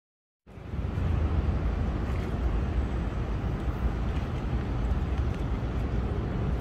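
Silence for about half a second, then steady outdoor city background noise with deep wind noise on the microphone.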